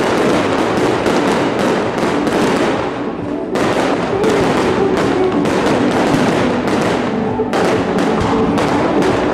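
Fireworks going off in a rapid, dense crackle of bangs, over music playing along with the display.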